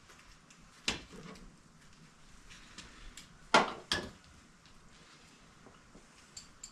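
A few sharp metallic clinks and knocks of hand tools against car parts during unbolting: one about a second in, the loudest pair near the middle, with small ticks between.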